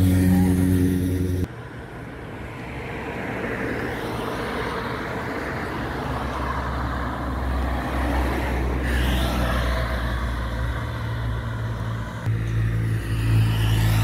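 Street traffic: a steady engine drone cuts off abruptly after about a second and a half, then road noise with a car passing close about halfway through. Near the end a Can-Am Spyder three-wheeled motorcycle goes by with a loud, steady engine note.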